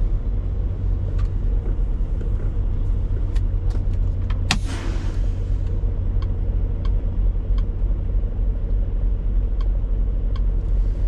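Peterbilt 579 semi truck's diesel engine running steadily, heard from inside the cab as the rig moves slowly. About four and a half seconds in there is a sharp release of air with a second-long hiss, and faint ticks recur at an even pace.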